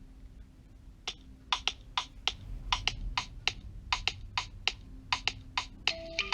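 Quiet opening of a background music track: soft, irregular clicks, about three or four a second, over a faint low hum, with short pitched notes coming in near the end.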